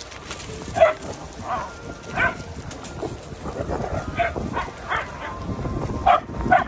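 Several dogs barking, short barks scattered irregularly; the loudest come about a second in, at about two seconds and near the end.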